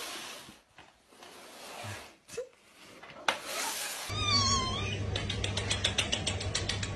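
A cat's short, high, wavering mew about four seconds in, over a steady low hum, after some muffled noise; a fast run of faint ticks follows.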